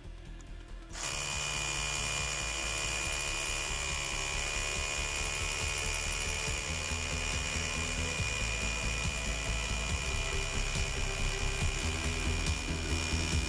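Parkside PBHA 12 A1 12 V cordless hammer drill boring a hole into a brick with a masonry bit. It starts about a second in, then runs steadily with a high motor whine.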